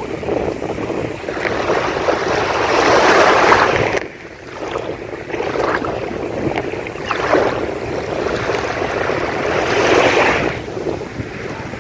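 Sea waves breaking and washing up a sandy beach, the surf swelling and easing, loudest about three seconds in and again near the ten-second mark, with a sudden lull at about four seconds.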